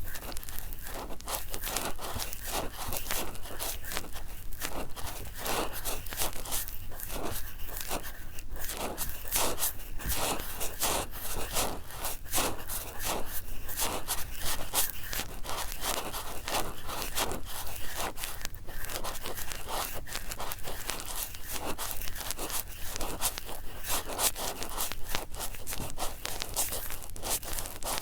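Cotton swabs scratching and rubbing close against the microphone: a dense, continuous crackle of quick short strokes with no pauses.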